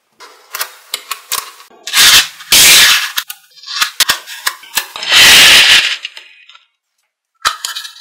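Small magnetic balls clicking and snapping together as they are pressed into place, with two longer, loud rattling clatters of many balls about two and five seconds in.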